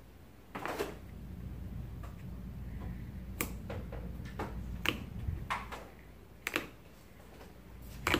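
Irregular sharp clicks and snaps from handling a container of slime, over a low steady background hum.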